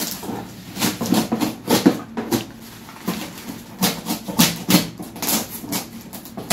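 A knife cutting through packing tape on a cardboard box, with brown kraft paper being torn and pulled away, in irregular scraping and rustling strokes.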